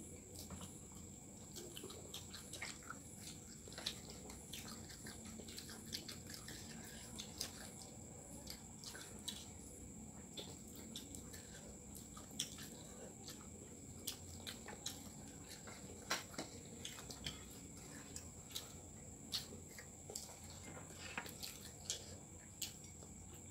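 Two children eating with their hands: faint chewing and lip smacks, heard as many small irregular clicks.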